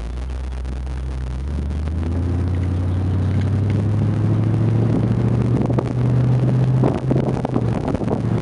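A 1957 Ford Skyliner's 312 cu. in. Y-block V8, heard from inside the open-top cabin, pulling under mild acceleration with its note climbing steadily in pitch and loudness. Near the end the engine note drops away under wind buffeting.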